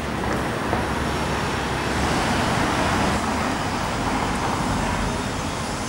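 Street traffic: the steady noise of passing cars, swelling a little midway through and easing off again.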